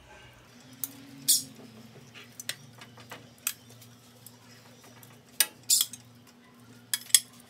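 Pieces of suadero beef fat and meat dropped into a stainless-steel pan and moved with metal tongs against the pan and an upturned steel bowl: a scattering of sharp clinks and clanks, about eight, the loudest past the middle and near the end, over a low steady hum.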